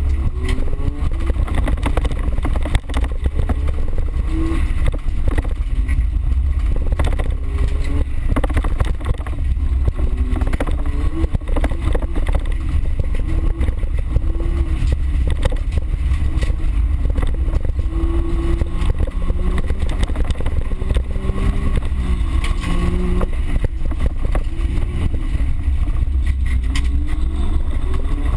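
A small car's engine heard from inside the cabin during hard driving on a dirt track, its revs rising and falling with the gear changes, over a heavy rumble and frequent knocks from the rough ground.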